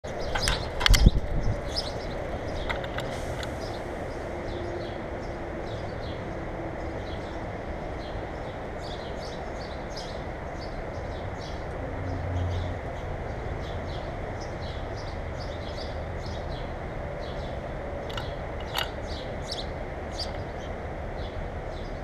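Backyard songbirds chirping, many short high calls scattered throughout over a steady background hiss, with a loud knock about a second in.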